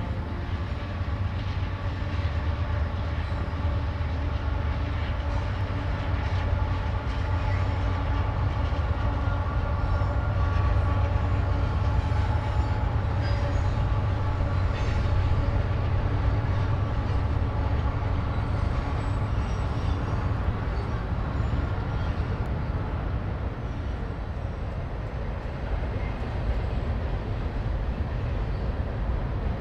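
Freight train rolling steadily across a steel bridge: a continuous low rumble of wheels on rail, with faint scattered clicks and thin high tones over it.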